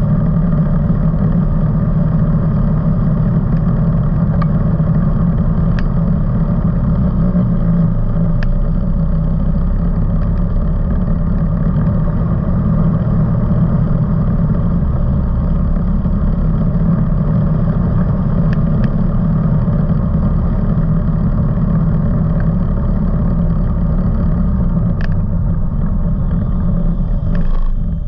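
Off-road vehicle engine running steadily while riding along a sandy trail, with a few faint sharp ticks. The engine note drops briefly near the end.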